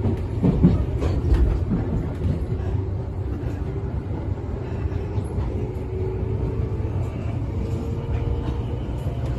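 Tobu 10000 series electric train running between stations: a steady low rumble, with a few sharp clicks from the wheels over rail joints in the first couple of seconds and a faint steady whine.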